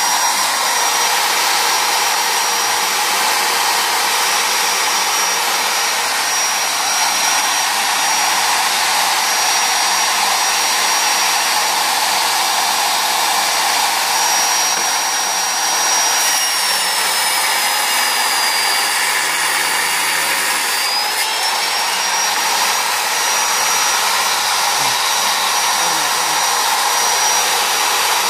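Hand-held electric circular saw mounted under a homemade wooden saw table, running steadily with a high whine. About two-thirds of the way through its pitch sags for a few seconds, then climbs back.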